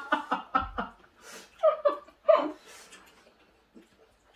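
A person laughing: a quick run of ha-ha pulses that trails off about a second in, then a couple of short gliding vocal sounds around two seconds in.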